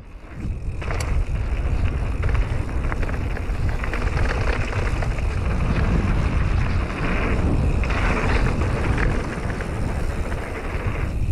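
Mountain bike descending fast on a loose gravel trail: knobby tyres crunching and rattling over the gravel, with a steady rush of wind on the microphone.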